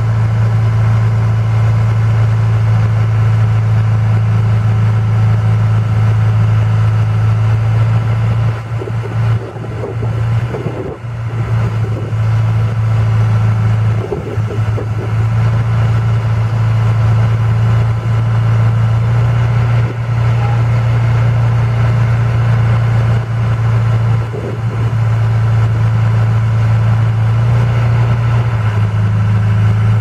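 John Deere 310E backhoe's 4.5 L four-cylinder diesel engine running with a strong, steady low hum, dipping briefly a few times, while the backhoe boom is worked.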